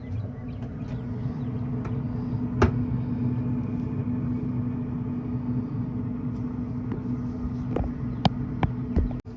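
A steady low mechanical hum over a rumble, with a few sharp clicks, one about two and a half seconds in and a cluster near the end.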